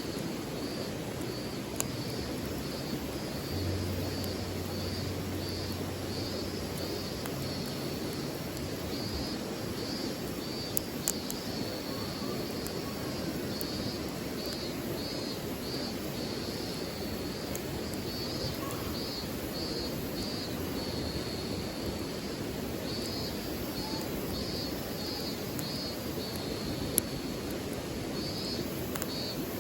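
Steady rush of a flowing river, with high chirping in short repeated runs above it and a few sharp clicks.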